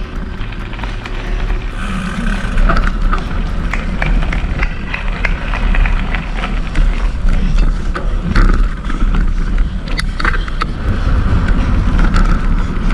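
Mountain bike ridden fast on a dirt trail: tyres rolling over the ground and the bike rattling and knocking, over a steady low rumble.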